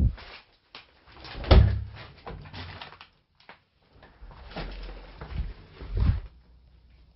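Irregular thumps and knocks with scraping and rustling, the sounds of someone moving about a cluttered room with a handheld camera; the loudest thump comes about a second and a half in.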